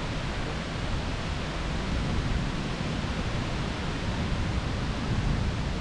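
Heavy thunderstorm rain falling on woodland trees, a steady even hiss.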